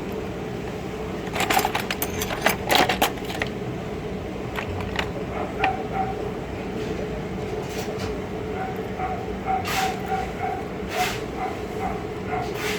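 Sharp metallic clicks and clinks of screws and a screwdriver on a car's throttle body and idle air control valve as the valve is being refitted, over a steady hum. Near the end, a run of short squeaks repeats a few times a second.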